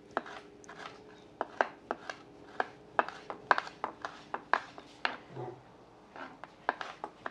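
Kitchen knife chopping tomatillos on a wooden cutting board: short knocks of the blade through the fruit onto the board, a few a second at an uneven pace.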